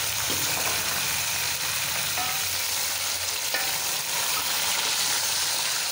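Raw chicken pieces and tomatoes frying in hot oil in an aluminium pot, a steady hiss of sizzling as they are stirred with a spoon: the meat has just gone into the hot oil with browned onions to be seared.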